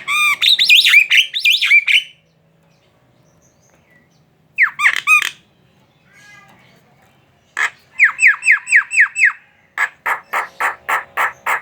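Javan myna chattering: a fast run of harsh, warbling notes, then a short burst. After a pause come six quick down-slurred whistles and a string of about seven harsh squawks near the end.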